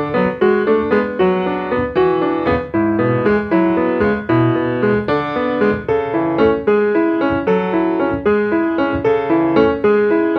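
Piano playing a steady, repeating run of notes, each struck and fading, with no singing: the instrumental introduction of the song.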